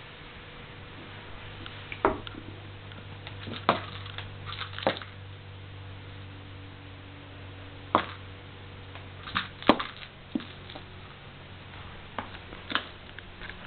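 Plastic rattle ball stuck to a cat's claw, knocking and rattling against a wooden floor as he walks and paws at it: about nine irregular sharp clicks, over a steady low hum.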